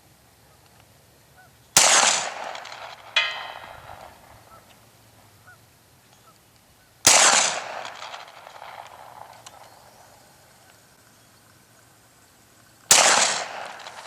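Three shots from a Beretta CX4 Storm 9mm carbine, spaced about five seconds apart, each followed by a fading echo. About a second and a half after the first shot, a distant steel gong rings briefly as a bullet strikes it, 240 yards downrange.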